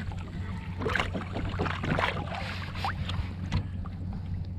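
Small knocks and light splashes on a kayak over a steady low wind rumble on the microphone.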